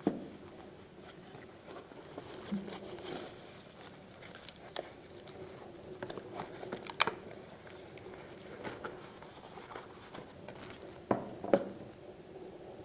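Handling noises at a kitchen counter: scattered small knocks, clicks and light crinkling, with sharper knocks at the start, about seven seconds in, and twice near the end.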